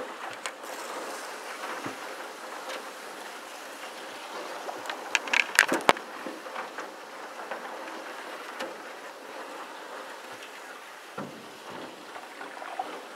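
Reeds scraping and rustling along the hull of an aluminum Grumman canoe as it pushes through a reed bed: a steady noisy brushing with scattered sharp ticks, and a cluster of louder clicks and scrapes about five to six seconds in.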